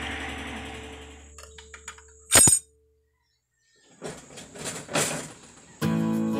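A steady background hum fades out, a few small clicks follow, then one short, loud crash about two and a half seconds in, cut off into dead silence. Faint scattered knocks come after, and acoustic guitar music starts near the end.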